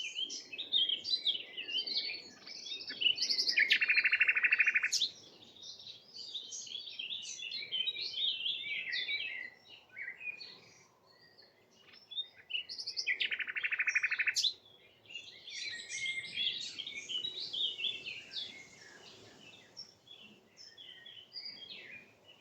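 Several small birds singing together, a busy mix of high chirps and warbles, with a loud rapid trill lasting about a second and a half twice, about four seconds in and again about thirteen seconds in.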